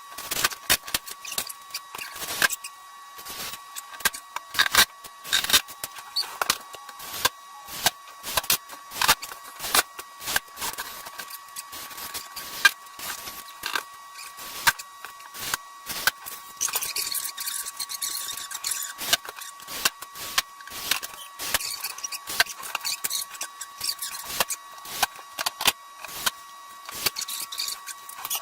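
Irregular clicking, tapping and scraping, the sound of tools and materials being handled during work, over a steady faint high-pitched tone.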